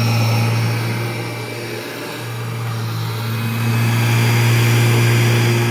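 Kirby Generation 3 upright vacuum cleaner running with a steady low motor hum; the level dips for a moment about two seconds in, then comes back up. The owner judges from its sound that it is due for a service.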